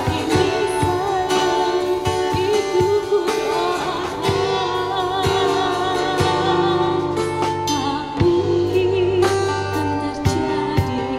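A woman singing into a microphone with long, wavering held notes, backed by a live band of drum kit and guitars, with steady drum strikes.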